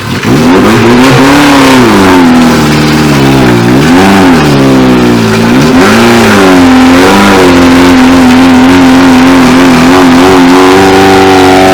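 Off-road vehicle's engine revving hard, its pitch rising and falling several times, then held steady at high revs from about halfway through.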